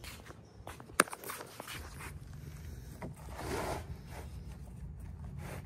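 Footsteps and handling noise on stone paving: a single sharp click about a second in, then a scraping rustle a few seconds later, over a low steady rumble.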